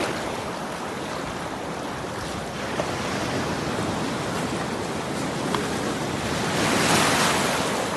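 Sea surf surging and washing over a rocky shore, a steady rushing noise that swells near the end.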